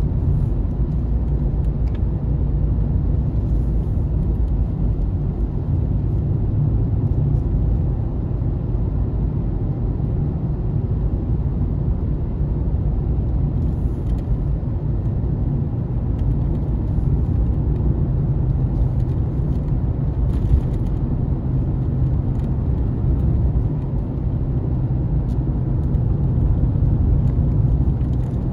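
A car driving along a road: the steady low rumble of its engine and tyres.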